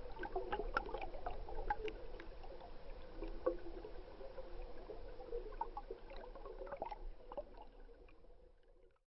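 Water gurgling and bubbling as heard through a submerged camera, with many small scattered clicks and pops. It fades out near the end.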